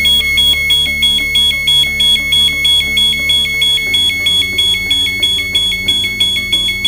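LaserShield wireless alarm siren sounding a test panic alarm: a loud, fast-pulsing two-tone electronic beep that runs on without a break.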